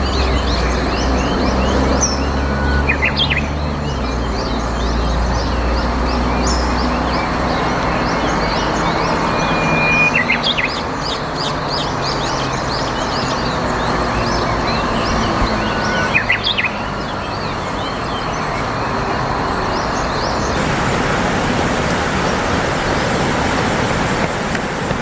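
Outdoor ambience of a steady rushing background with small birds chirping throughout and a few sharper calls. A low hum fades out over the first several seconds.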